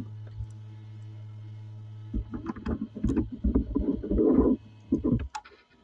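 A mini LED projector giving a steady low electrical hum. From about two seconds in, a run of knocks, clicks and rustles come as a USB flash drive is plugged into it. Near the end the hum and the handling noise cut off suddenly.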